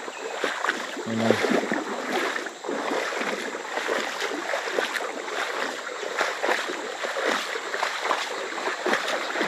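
Shallow river water sloshing and splashing over a stony bed, a continuous uneven rush with many small splashes.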